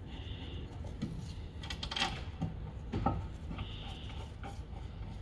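Faint metallic handling sounds: a few short clicks and taps as the front brake caliper carrier is set against the hub and its bolts are wound in by hand, the clearest about one, two and three seconds in.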